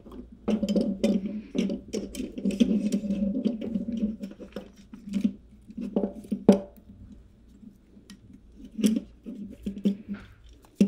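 Elastic shock-mount bands being stretched and hooked onto the plastic cage hooks of a microphone shock mount: irregular sharp plastic clicks and taps over a rough, uneven rubbing of the bands and cage.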